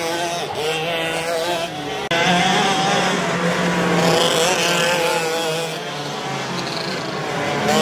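Racing kart engines running at speed on a circuit, their pitch rising and falling with the throttle through the corners. Several engines overlap, and the sound changes abruptly about two seconds in.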